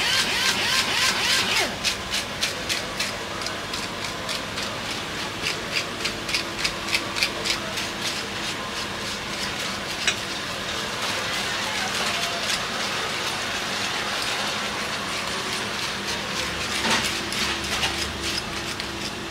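A fish knife scraping and slicing repeatedly along a fish fillet on a wooden chopping block, about two or three strokes a second, over a steady background hum. The strokes thin out about halfway through, and a short burst of scraping comes near the end.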